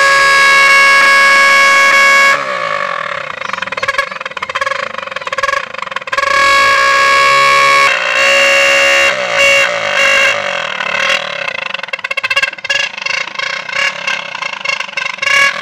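Plastic toy trumpets fitted to a Hero Splendor motorcycle's exhaust, honking with one steady tone as the exhaust gas blows through them. After about two seconds the tone turns wavering and choppy, breaking up into uneven short blasts and coming back, then steadies for a while near the middle.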